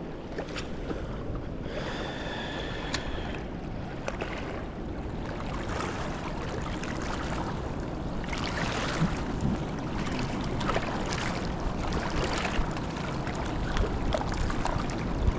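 Steady rush of the fast-flowing Niagara River, with wind on the microphone. A brief high whistle sounds about two seconds in.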